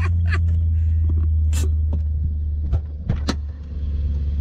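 A Lexus 1UZ-FE V8 in a Toyota Hilux runs with a steady low drone, heard from inside the cab while the truck is driven. Several sharp clicks and knocks of the cab rattling sound over it, a few of them close together about three seconds in.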